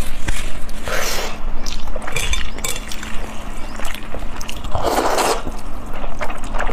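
Close-miked eating sounds: wet chewing and slurping, with a loud slurp of noodles about five seconds in.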